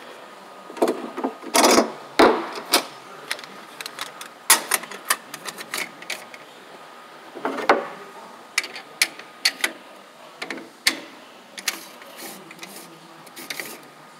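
Irregular clicks, clanks and scrapes of metal clamp bands being fitted back by hand around a truck's spin-on air dryer cartridge. There are louder rustling scrapes about two seconds in and again near eight seconds.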